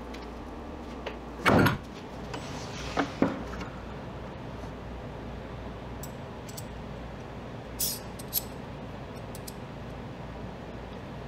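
Workshop room tone with a steady low hum, broken by one heavy knock about one and a half seconds in, two sharp clicks a second or so later, and a few light taps and ticks later on, as of things being handled and set down.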